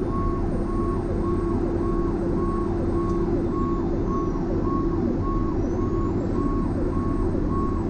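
Fire engine's electronic siren cycling fast: a high tone that drops away in pitch about twice a second, over the steady drone of the truck's engine and road noise.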